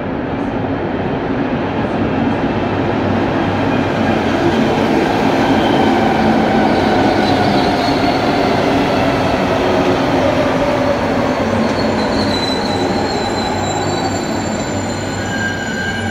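CAF-Bombardier NM-02 rubber-tyred metro train pulling into the station: its running noise grows louder as the cars pass, and its traction motors whine down in pitch as it slows. High-pitched brake squeals come in over the last few seconds.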